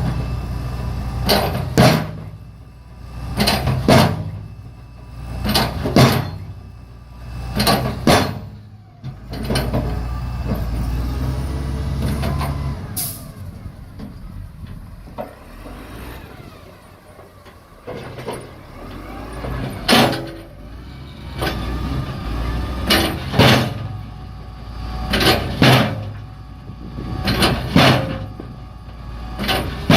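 Road-paving machinery at work: a heavy engine running with a low steady drone, and a loud sudden burst about every two seconds. The bursts let up for a stretch in the middle, leaving only the engine.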